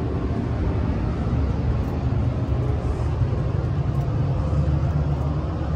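Steady low rumble and hum inside an Amtrak San Joaquin passenger rail car standing at the station.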